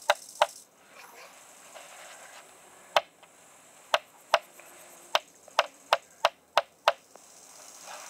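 Sharp knocks of a hand tool striking a workpiece, about eleven in all: two at the start, then a run that quickens toward the end.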